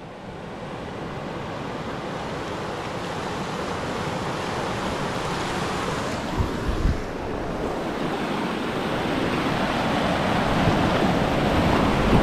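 Steady rushing noise of wind on the microphone over a river, growing gradually louder, with a couple of brief low buffets about six and a half seconds in.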